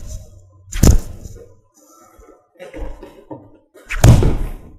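Uppercuts landing on a free-standing rubber torso training dummy: two solid thuds, about a second in and near the end, with a few softer knocks between them.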